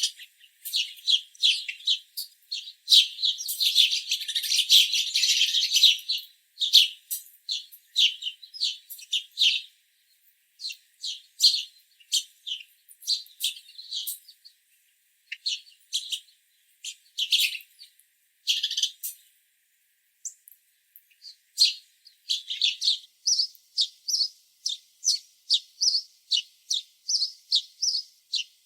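House sparrows chirping: a busy flurry of overlapping chirps that thins out in the middle, then a steady run of quick, evenly spaced chirps, two or three a second, over the last several seconds.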